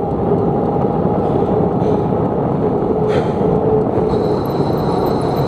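Wind buffeting the microphone of a camera on a moving bicycle: a loud, steady rush of low noise. Faint high chirps come in near the end.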